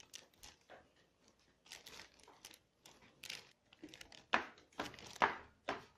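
Packaging being handled, crinkling and rustling in irregular short crackles that grow louder and busier about two-thirds of the way through.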